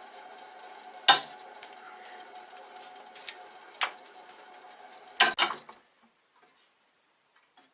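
Sharp clicks and knocks of hard metal and plastic being handled, as a spindle gouge is marked and set in a grinder sharpening jig: single knocks about one, three and four seconds in, and a quick double knock just after five seconds. A steady low hum lies underneath and cuts off abruptly about six seconds in.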